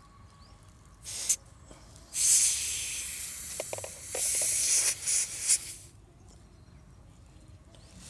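Compressed air hissing out of a car tyre valve in several spurts while the inflator hose's screw-on chuck is threaded onto it and presses the valve open. The longest hiss lasts about two seconds, and another lasts about a second.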